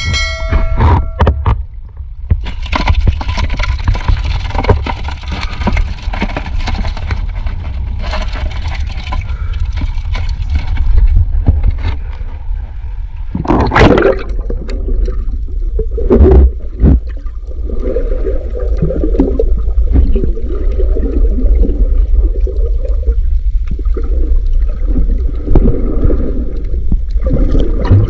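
Water sloshing and gurgling, heard with the microphone underwater or at the surface, over a steady low rumble, with two sharp knocks about halfway through.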